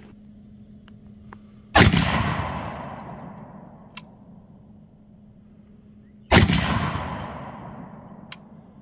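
Two single shots from an AK-pattern rifle, about four and a half seconds apart. Each is a sharp crack followed by a long echo that fades over about two seconds.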